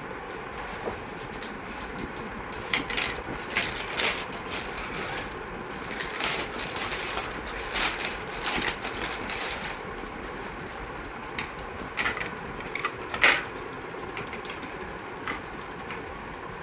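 Irregular clicks, taps and clatter of hard plastic and metal parts being handled while working on a desktop PC, in two busy spells with a sharper knock near the end, over a steady background noise.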